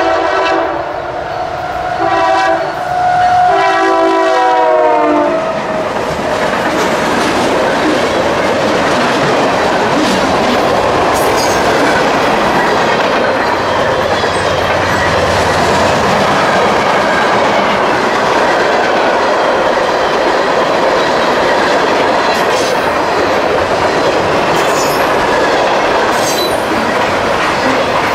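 A CSX freight locomotive blows its chord horn, several tones at once, and the pitch drops as the locomotive passes about five seconds in. Then the freight cars roll by with steady wheel-on-rail noise and clickety-clack.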